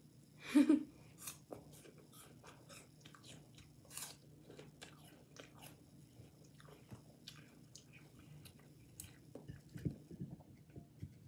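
Someone biting and chewing crisp raw apple slices: a run of small crunches and mouth clicks, with a louder sound about half a second in.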